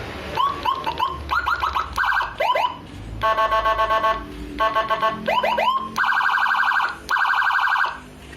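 Whelen HHS 3200 electronic siren sounded in short bursts through its loudspeaker: quick rising whoop chirps fired in rapid groups, alternating with bursts of about a second of a fast pulsing tone. It stops just before the end.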